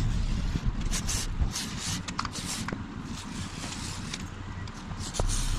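Aerosol can of silicone lubricant spraying in several short hissing bursts, most of them in the first half, to free a jammed car window.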